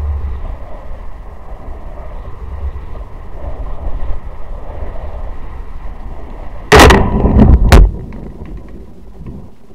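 Wind rumbling over the microphone of a descending high-altitude balloon payload, then about seven seconds in a loud crashing, rustling burst lasting about a second with a few sharp cracks as the payload crashes into tree branches.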